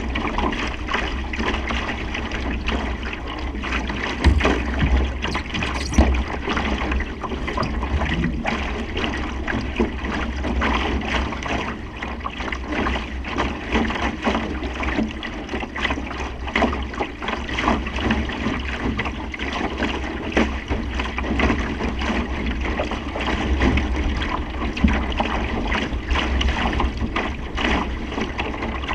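Wind buffeting the microphone with a steady low rumble, over water rushing and splashing against a Supernova sailing dinghy's hull as it sails in a strong breeze. Two louder thumps come about four and six seconds in.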